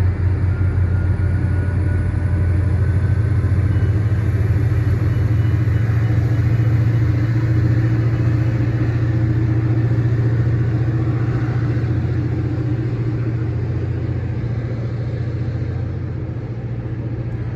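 Caltrain diesel locomotive engine running with a deep, steady hum, easing a little quieter near the end.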